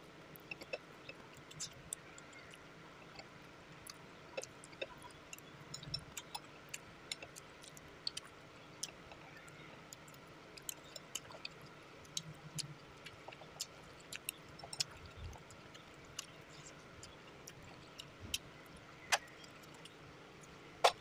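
Metal spoon and fork clinking and scraping against a plate of fried rice, with quiet chewing between. The sharp little clicks come irregularly throughout, the loudest near the end.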